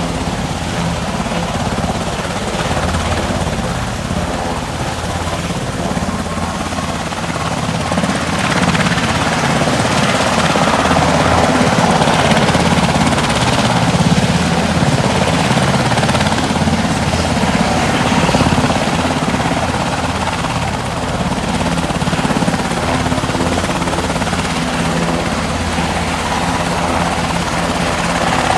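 Sikorsky S-92 helicopter on the ground with its main rotor turning: a loud, steady running noise from its twin turboshaft engines and rotor, with a low drone and a thin high whine, a little louder in the middle stretch.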